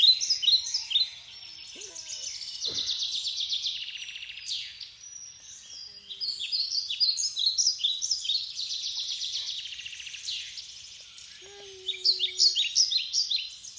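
Several songbirds singing at once: a dense chorus of rapid trills and repeated chirps that overlap without pause, loudest at the very start and again about twelve seconds in.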